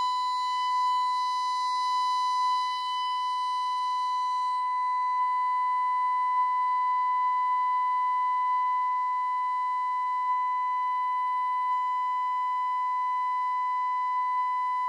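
Steady 1 kHz test tone from an audio generator, played through the Hacker Sovereign RP18 radio's transistor amplifier board and speaker. For the first four and a half seconds the amplifier is driven into clipping and the tone is harsher, with more overtones. After that it is cleaner, sitting just at the point where the amplifier starts to clip.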